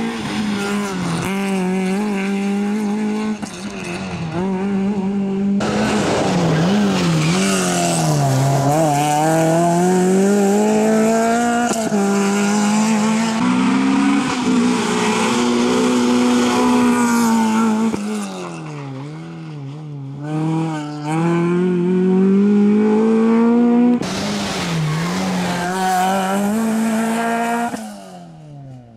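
Peugeot 306 rally car engine revving hard on a tarmac stage. The note climbs under acceleration and dips as the driver lifts and changes gear, with tyre squeal, over several short passes that cut abruptly from one to the next.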